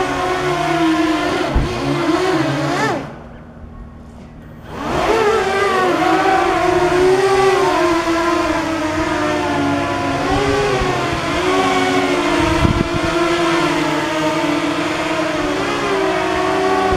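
Homemade radio-controlled flying saucer's motors and propellers whining steadily as it hovers, the pitch wavering up and down with the throttle. About three seconds in the whine falls away for a second and a half, then rises back up, and there is a short thump about two-thirds of the way through.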